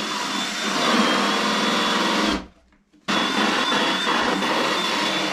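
Electric drill motor running with a steady high whine while drilling holes; it cuts out about halfway through and starts again a moment later.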